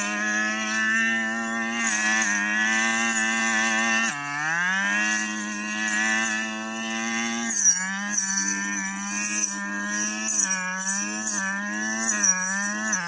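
Small two-stroke brush cutter engine running at high revs. Its pitch drops sharply and climbs back about four seconds in, dips again around seven and a half seconds, then wavers up and down as the throttle and load change.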